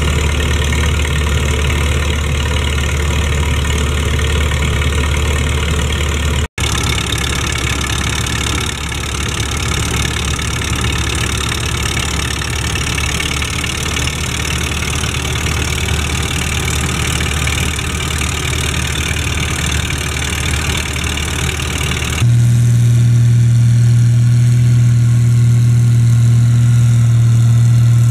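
Massey-Harris 44 tractor engine running steadily while driving a flat belt to a belt-driven fan, with the engine's low hum under a rushing noise from the fan and belt. About 22 seconds in, the sound changes to another tractor engine running with a louder, steady hum.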